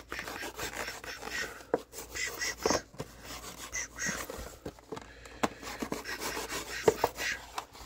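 Knife blade scraping and cutting along the edge of a plastic blister pack on its cardboard backing card, with plastic crinkling and a few sharp clicks.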